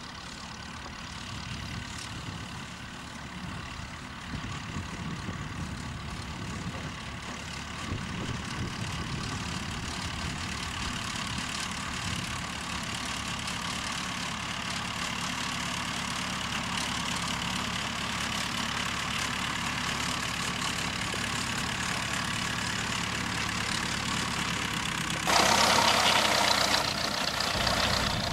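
Ferguson TEF-20 tractor's four-cylinder diesel engine running steadily while pulling a springtine grass harrow, growing gradually louder as the tractor comes closer. Near the end a loud rushing noise lasts about a second and a half.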